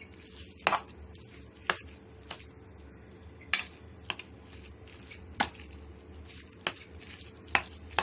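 A spoon stirring curd rice (boiled rice mixed with yogurt and milk) in a bowl, clinking sharply against the bowl about eight times at irregular intervals.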